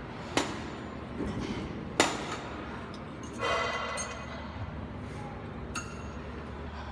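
Cable machine at work: four sharp metal knocks, the loudest about two seconds in, with a short metallic ringing clink a little after the middle.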